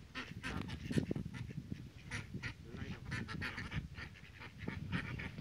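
A small flock of ducks quacking over and over, many short calls overlapping.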